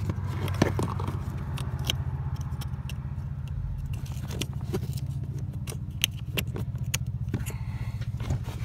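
A steady low vehicle engine hum with a fine rapid pulse, most likely the truck idling. Over it come scattered sharp clicks and light scrapes of hands working at the newly fitted blower motor and its wiring under the dash.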